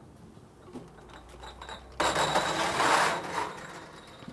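Metal tray loaded with empty glass jars slid into an oven: faint clinks of the jars, then about two seconds in a sudden scraping rattle of metal on metal that lasts about a second and fades.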